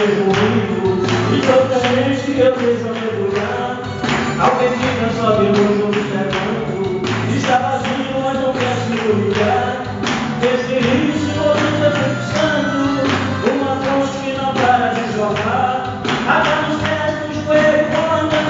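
A male singer sings a gospel song through a microphone and PA speakers. He is backed by amplified instrumental accompaniment with a steady percussive beat, and his melody line is held and wavering.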